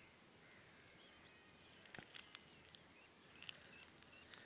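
Near silence: room tone, with a faint rapid run of high chirps, about ten a second for roughly a second near the start, and a few faint clicks later.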